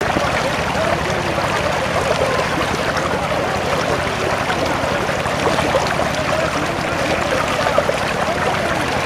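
Water rushing steadily, a continuous flowing noise.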